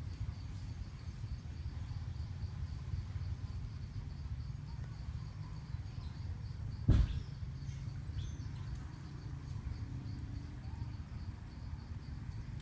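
An insect chirping evenly, about three high pulses a second, over a steady low outdoor rumble. One sharp thump about seven seconds in.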